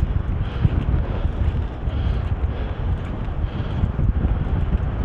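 Wind buffeting the microphone over the steady rumble of a vehicle driving along at road speed.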